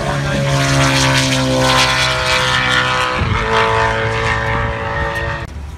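High-performance car engine at full throttle as the car runs down the airstrip. The steady engine note sinks slightly in pitch as it pulls away, breaks briefly about three seconds in, then cuts off suddenly near the end.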